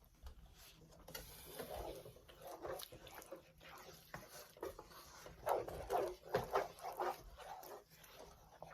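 A person chewing and smacking while eating a cheeseburger and fries: irregular wet mouth sounds, busiest and loudest from about five and a half to seven seconds in.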